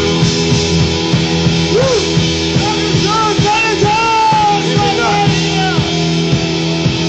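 Live rock band playing loud: distorted electric guitars, bass guitar and drum kit, with sliding pitched lines over steady low notes.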